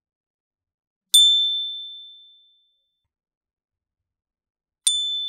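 Optimized elliptical metal metallophone plate struck twice, about a second in and again near the end. Each strike is a bright ding pitched near A7 with fainter overtones near A8 and A9, ringing and dying away over about a second and a half.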